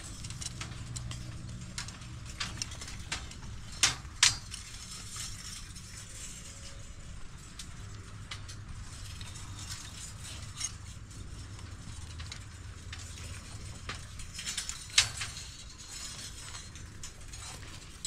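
Construction work: scattered clicks and knocks, with a few sharper, louder knocks around four seconds in and near the end, over a steady low hum.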